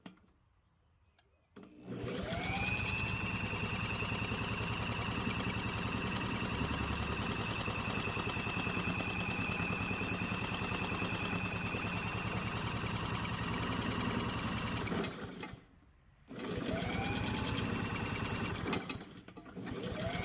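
Lawn mower engine being cranked by a starter motor in three goes: a long stretch of about thirteen seconds, then two short ones. Each time a whine rises and then holds steady over a fast, even chugging. The mower won't keep running, which the owner puts down to a faulty carburetor.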